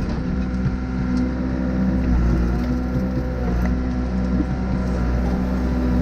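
Backhoe diesel engine running steadily under load while digging weeds out of a ditch, with a few sharp cracks and snaps mixed in.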